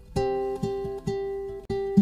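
Background music: plucked string notes picked out one by one, each ringing and fading, about two a second.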